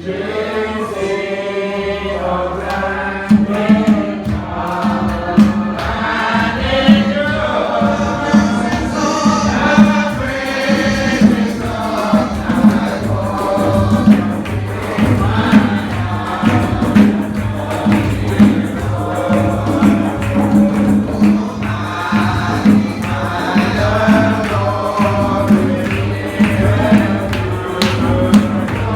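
Gospel music with group singing over a sustained bass line; a steady beat comes in about three seconds in.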